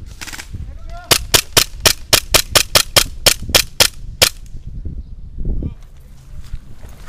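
WE M&P gas blowback airsoft pistol firing a quick string of about fourteen shots, roughly four a second, for about three seconds.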